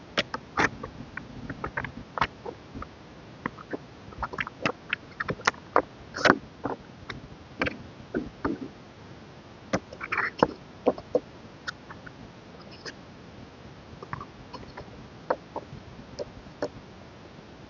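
Hands handling a K-pop album and its contents during an unboxing: irregular clicks, taps and short rustles, with a longer rustle about ten seconds in.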